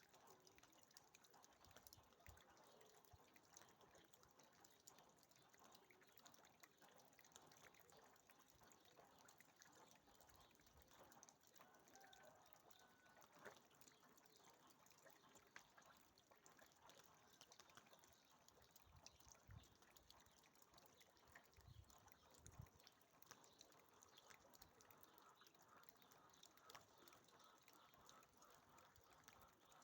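Near silence: faint outdoor background hiss with scattered soft clicks and a few brief low thumps.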